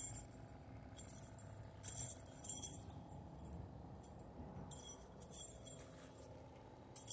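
Pesticide sprayer nozzle hissing in short bursts, about four times, as insecticide is sprayed on the ground against ticks.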